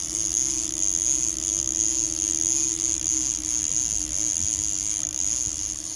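Boat motor running steadily at trolling speed, an even hum with a high whine over a low rumble.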